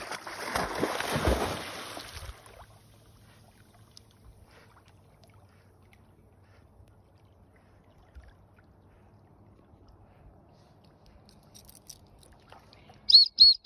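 A dog plunging into a pond with a loud splash lasting about two seconds, then swimming away quietly. Just before the end come three short, high-pitched whistle toots.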